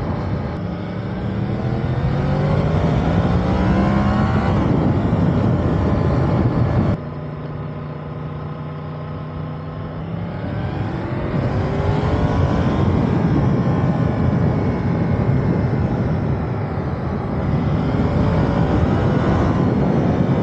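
Motorcycle engine accelerating through the gears, its note climbing and dropping back at each upshift, over a steady rush of wind. About seven seconds in the sound drops abruptly to a quieter, steady engine note, then the revs climb again.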